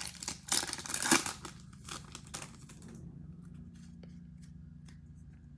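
Card pack wrapper being torn open and crinkled in the hands, a busy crackling for about three seconds, then only a few faint ticks of handling.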